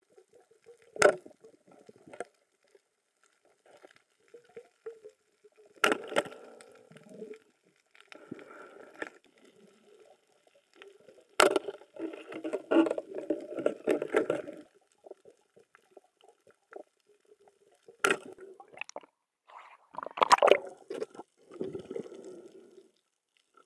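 Muffled underwater sound through a dive camera's housing: five or six sharp clicks or knocks a few seconds apart, with spells of bubbling and gurgling water after several of them.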